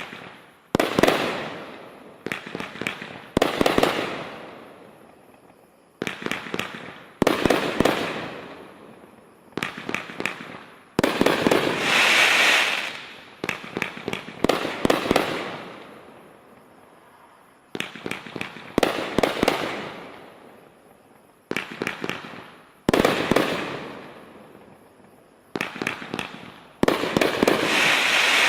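Multi-shot consumer firework cake (Brothers Fireworks Neon Dream, 30 shots) firing in sequence: a shot every second or two, each a sudden bang that fades away over a second or so, several with crackling tails.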